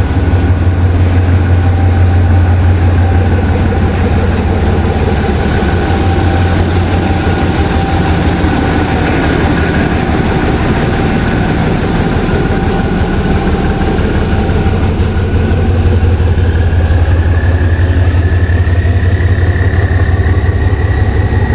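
GEK-class diesel-electric locomotive engine idling with a steady low drone. A faint whine rises slightly in pitch in the last few seconds.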